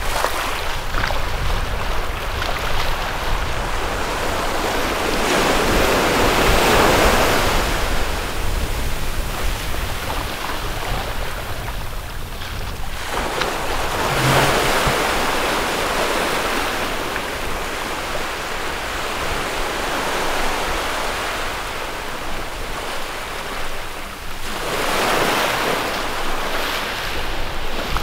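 Sea waves washing up on a beach: three swells of surf noise that build and fade over a few seconds each, with a constant low wind rumble on the microphone.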